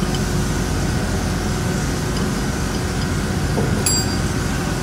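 Steady machine drone with a low hum and a faint steady whine. About four seconds in comes a single sharp metallic clink from the steel tommy bar turning the nut inside the hydraulic bolt tensioner.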